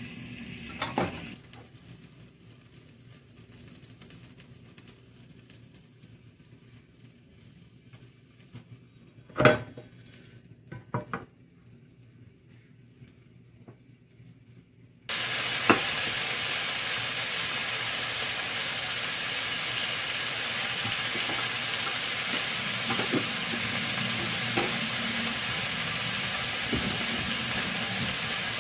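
A few faint knocks, then about halfway a sudden start of loud, steady sizzling with small pops: a pan full of raw chicken pieces frying in hot oil in a nonstick frying pan.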